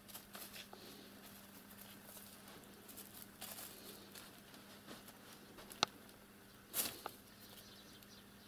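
A kitten's paws moving over paper and the plastic top of an old computer monitor: soft, irregular rustling and pattering, with a sharp click a little before six seconds and a louder rustle about seven seconds in. A faint steady hum runs underneath.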